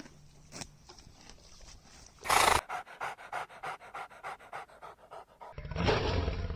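A dog panting quickly in short, even breaths, after one louder, breathy burst about two seconds in. Near the end a different, noisier sound takes over.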